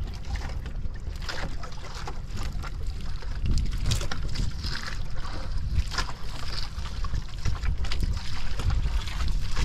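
A steady low rumble on a fishing boat at sea, with scattered short knocks.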